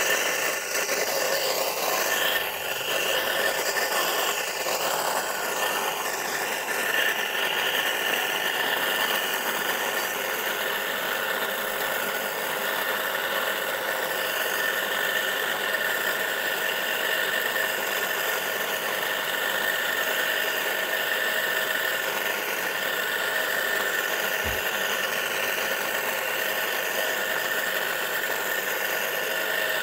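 Single-phase electric motor of a wheeled furrow cutter running steadily under load, its blade digging a furrow in the soil. It gives a steady whine made of several high tones over a noisy rush, with no change in speed.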